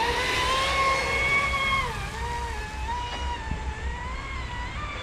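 Traxxas Spartan's 6S brushless motor and prop driving the RC deep-V boat at speed across the water: a high motor whine that wavers in pitch, dipping about two seconds in as the throttle eases, then picking back up, over the hiss of spray.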